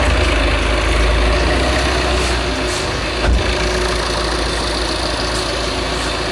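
Tata Nexon's engine idling steadily while hydroxy gas is fed into its air intake for carbon cleaning, with a single click about three seconds in.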